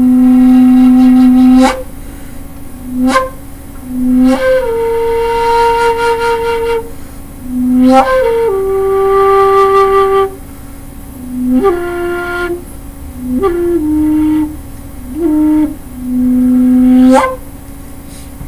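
Bamboo xiao, a Chinese end-blown flute in the key of C, played slowly in the pentatonic minor: long held notes, each starting sharply, with short pauses between them. The last note ends shortly before the end.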